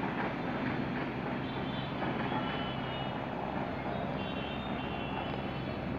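Helicopter flying overhead: a steady, dense rotor and engine noise with a low pulsing underneath, and thin high-pitched tones coming and going in the second half.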